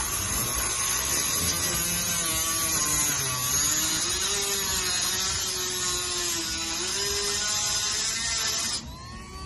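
Dremel rotary tool with a cutting wheel grinding through a metal door rod. Its motor pitch dips and rises as it bears down, and it cuts off abruptly near the end.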